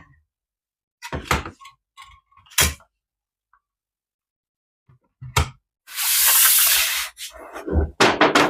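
Scattered clicks and knocks, then a hiss lasting about a second around six seconds in, followed by a quick run of clicks near the end.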